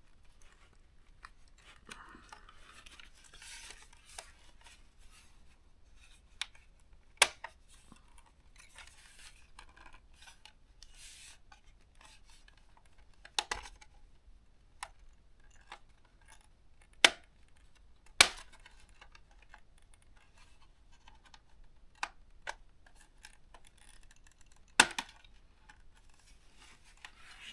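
Plastic clips of a ThinkPad T430's plastic cover snapping loose as it is pried off the laptop's base, with soft scraping of the pry tool in between. There are a handful of sharp clicks, spaced a few seconds apart, the loudest two about a second apart in the middle.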